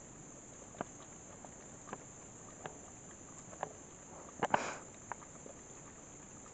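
Dog drinking water poured from a plastic bottle: a few faint scattered wet clicks and a louder brief splash about four and a half seconds in, over a steady high drone of insects.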